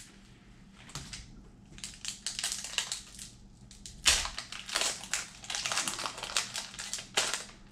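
Foil Pokémon booster pack wrapper crackling and crinkling as it is torn open by hand: a string of sharp, irregular crackles, the loudest about four seconds in.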